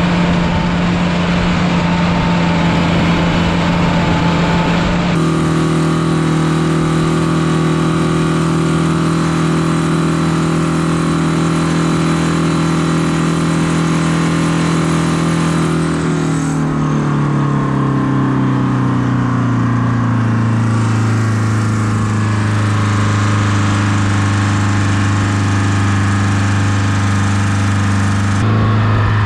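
Oliver tractor diesel engines running under way: first the Oliver 2255's Caterpillar 3150 V8 diesel, then the Oliver 1950's Detroit Diesel 4-53 two-stroke diesel. About halfway through, the Detroit's engine speed falls and settles into a lower, steady note.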